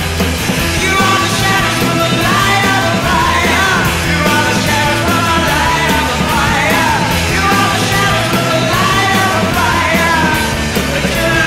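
Punk rock song with a man singing over a dense band backing; the voice comes in about a second in.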